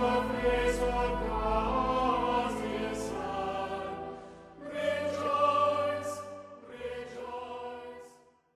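Choral music, a choir singing sustained notes, dipping about four and a half seconds in and fading out near the end.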